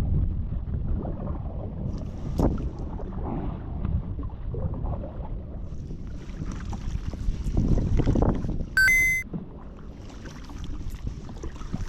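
Wind buffeting the microphone in a low rumble, with water sloshing and small knocks around a lightweight folding plastic kayak being moved on choppy water. A brief high-pitched tone sounds about nine seconds in and is the loudest thing heard.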